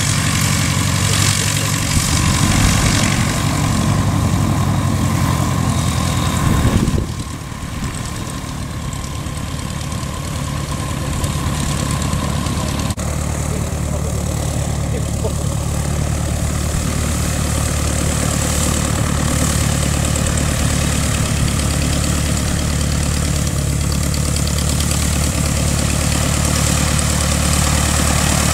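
Robin DR400 light aircraft's piston engine running at low taxi power, propeller turning, a steady low hum. The sound drops suddenly about seven seconds in, then builds back up.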